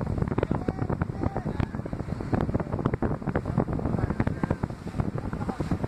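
Ride aboard a boat at sea: wind buffeting the microphone in a dense crackle over a heavy low rumble and the wash of the sea, with faint, indistinct voices behind.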